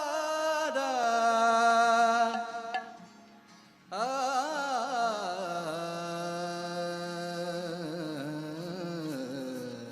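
Slow, wordless opening of an Indian devotional song: a singing voice holds long notes and glides between them in two phrases. The first fades out about three seconds in, and the second begins about a second later over a steady low note.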